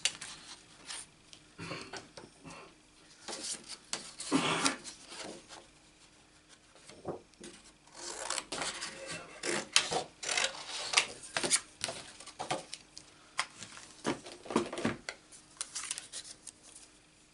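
Sheets of cardstock being handled and slid across a craft mat: irregular rubbing and scraping, with scattered light taps as a metal die and plastic cutting plate are set in place.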